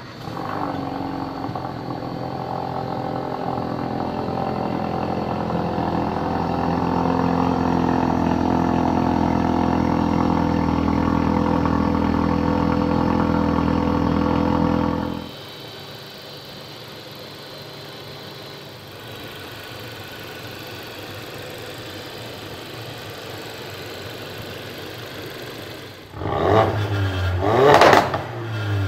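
2016 Ford Focus RS's 2.3-litre turbocharged four-cylinder engine and exhaust running at a steady, raised engine speed that slowly grows louder. About halfway through it drops suddenly to a quieter, steady idle. Near the end the engine is revved sharply twice, each rev rising and falling quickly.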